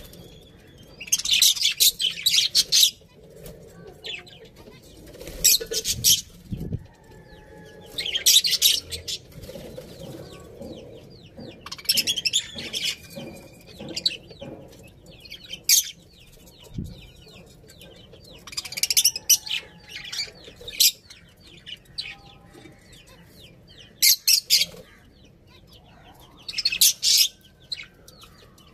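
Budgerigars chirping in repeated short bursts of rapid, high-pitched chatter every few seconds.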